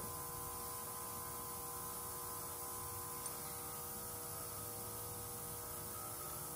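Steady low electrical hum with several faint steady tones, the background of a quiet workshop, with one faint small tick about three seconds in.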